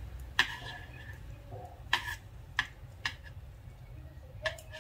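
Metal knitting needles clicking against each other as stitches are worked: about six light, sharp ticks at uneven intervals, a couple with a brief ring.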